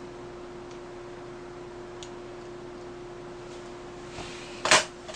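Quiet room tone with a steady low hum and a few faint clicks, then one short, loud, breathy puff of noise near the end.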